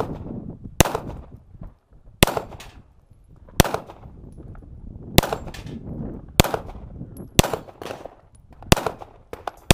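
Pistol shots in a slow, uneven string, about eight of them roughly a second or more apart, each followed by a short echo.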